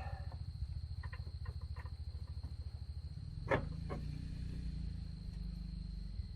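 A low, rapidly pulsing rumble, steady throughout, with one sharp click about three and a half seconds in.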